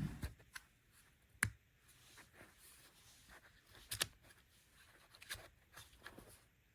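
Hands handling a plastic travel adapter: scattered small clicks and knocks, the two loudest about a second and a half and four seconds in.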